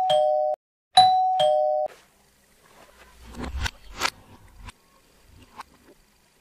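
Two-tone electronic doorbell chiming ding-dong twice, about a second apart. Then a few clicks and knocks as a round doorknob is turned and the latch clicks while a door is opened.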